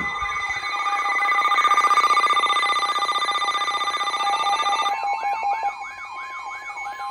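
Emergency alert tones: several steady electronic tones layered with a rapidly repeating warbling alarm. About five seconds in, most of the tones cut out, leaving a single steady tone under the warble.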